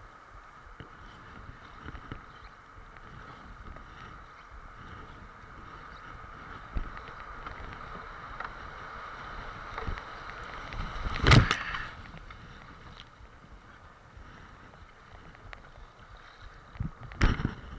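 Kayak moving through choppy river water: a steady rush and wash of water around the hull and paddle, with wind on the microphone. A few sharp thumps cut through it, the loudest about two-thirds of the way in and another near the end.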